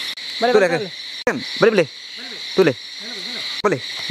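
Steady night-time insect chirring, with a string of short calls falling in pitch, about one a second, louder than the chirring.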